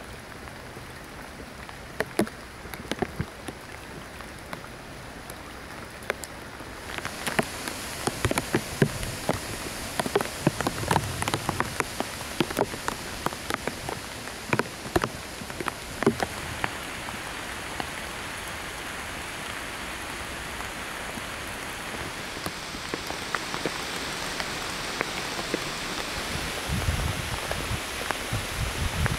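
Rain falling, with separate drops ticking sharply on a surface; the rain grows louder about seven seconds in. Low rumbles come in near the end.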